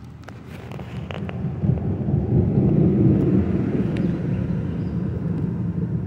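A low rumble that swells to a peak about three seconds in, then slowly fades, with a few light clicks near the start.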